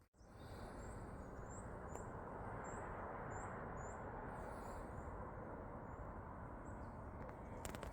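A small bird calling a run of short, high, thin chirps, a little under two a second, that fade out about six seconds in, over a steady low outdoor hiss.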